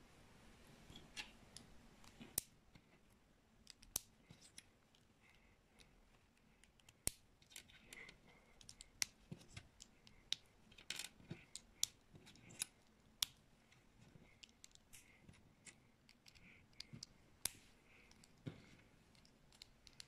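Small plastic LaQ puzzle pieces being snapped together by hand: faint, irregular clicks, a few of them sharper and louder.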